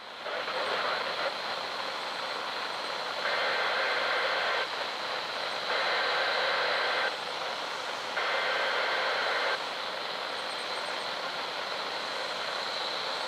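Weather radio static, a loud steady hiss from a weak NOAA Weather Radio signal. Three faint EAS SAME header data bursts, each about a second and a half long with a second between them, come through the static partway in, marking the start of the Required Weekly Test.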